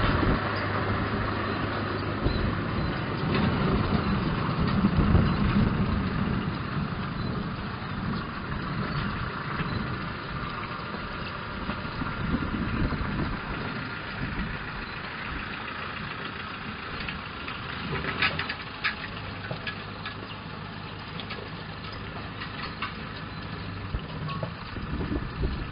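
A vehicle engine idling steadily, easing back after the first several seconds, with a few faint clicks about three-quarters of the way in.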